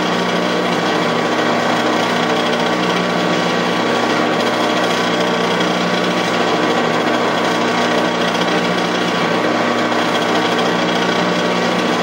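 Metal lathe running steadily, its chuck spinning a muzzleloader breech plug while a drill bit fed from the tailstock bores into the end of it. A constant motor and gear drone with a few steady tones and no change in pace.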